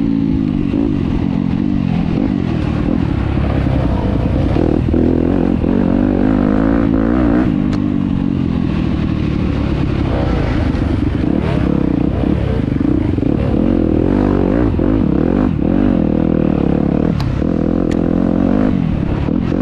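Enduro dirt bike engine running hard, its pitch rising and falling constantly as it is revved up and down, with scattered knocks and clatter.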